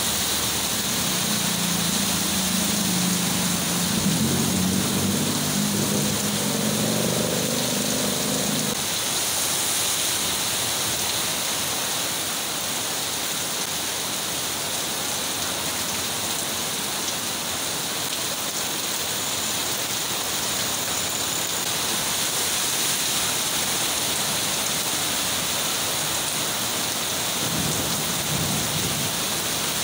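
Heavy rain falling steadily on a flooded street, with a low engine rumble as a jeepney passes through the water during the first nine seconds and another vehicle rumbling past near the end.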